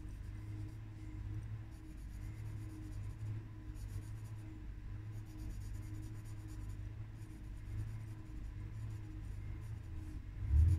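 Colouring strokes on paper: a soft scratching that comes and goes in short spells, over a steady low hum.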